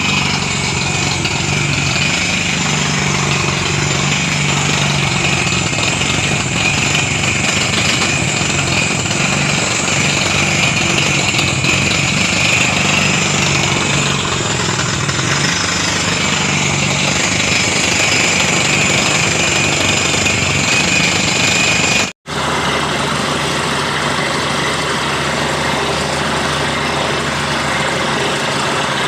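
Heavy machinery running steadily: a low engine hum under a strong high-pitched hiss. The sound drops out for an instant about 22 seconds in, then the same running resumes.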